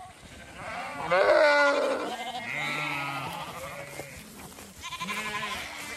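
Zwartbles sheep bleating, several calls: a loud one about a second in, followed by lower, deeper bleats and another call near the end.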